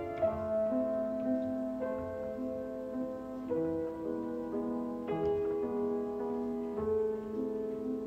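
Piano music: a melody of held notes, changing every half second or so.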